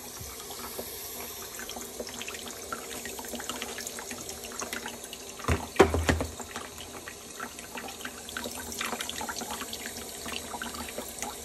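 Water running steadily into the brine tank of a GE water softener during its recharge cycle, with a couple of sharp knocks a little past halfway.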